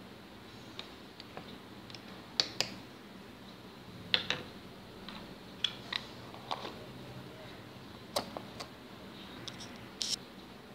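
A metal spoon clinking against a glass jar as dry fruits in honey are scooped out, then a plastic screw lid being put on and twisted shut. The sound is a series of sharp clicks, several of them in quick pairs.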